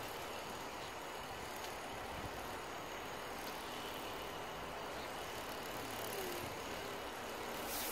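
Steady outdoor background noise with wind on the microphone.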